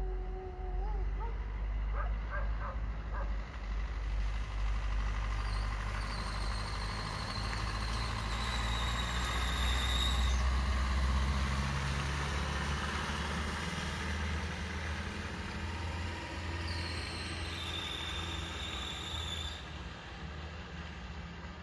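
Low rumble of a heavy vehicle passing, building to a peak about halfway through and fading again. A thin high-pitched whine comes in twice.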